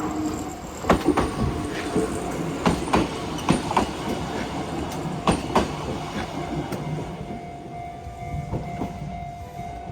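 A Kintetsu Minami-Osaka Line train running past, its wheels clacking over the rail joints in quick pairs as each bogie crosses. The clacks thin out and fade after about six seconds.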